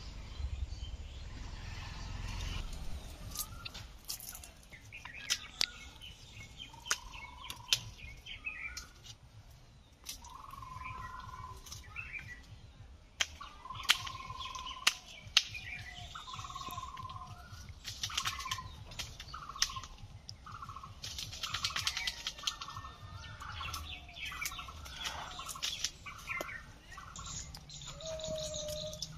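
Several birds chirping and calling: many short whistled notes and trills, overlapping and repeating, with a few sharp clicks among them.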